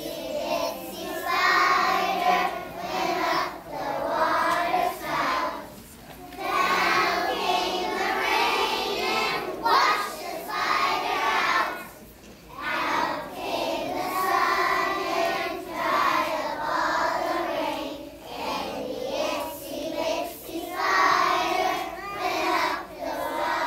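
A choir of young children singing a song together, in phrases of several seconds with short breaks between them.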